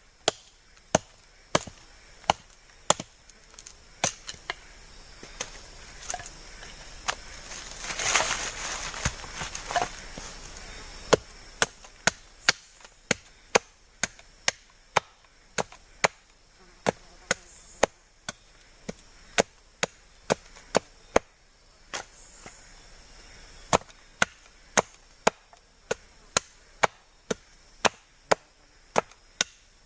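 Wood being chopped with a blade: sharp strikes repeated about one to two a second. A rushing hiss swells for several seconds in the middle.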